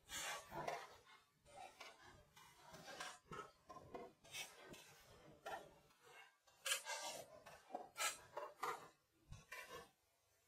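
Faint, irregular scraping and rubbing strokes, a few a second, with one dull low knock near the end.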